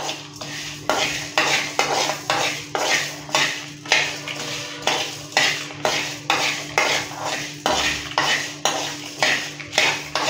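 A metal spoon stirring and scraping whole spices, mostly coriander seeds with dried red chillies, as they roast in a metal pan: a scrape and rattle of seeds on metal about twice a second. A low steady hum runs underneath.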